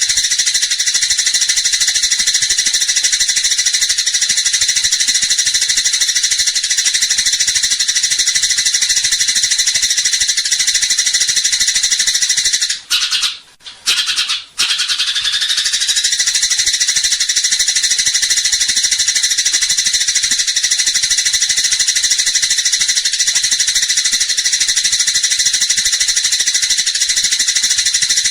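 Eurasian tree sparrows chattering in a dense, unbroken stream of rapid high chirps, the excited calling of sparrows in a fight. The sound breaks off briefly twice, about 13 and 14 seconds in.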